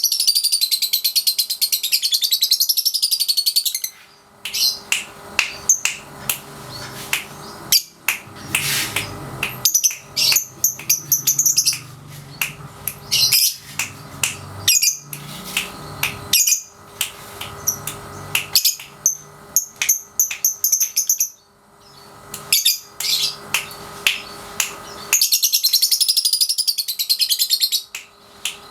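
Young lovebird, about three and a half months old, giving its 'ngekek' song: long runs of fast, high, rattling chatter at the start and again near the end, with separate sharp chirps and calls in between. It is a young bird still learning to draw the ngekek out longer.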